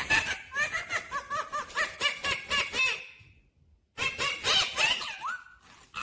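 A ringneck parakeet vocalizing in a rapid string of short chattering calls that arch up and down in pitch. After a brief silence about three seconds in, it resumes with a few longer gliding calls.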